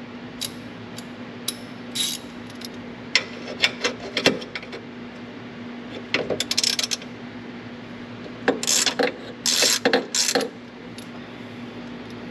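Hand ratchet with a T30 Torx bit tightening a ground-strap bolt snug: scattered single clicks at first, then several short bursts of rapid ratcheting clicks in the second half.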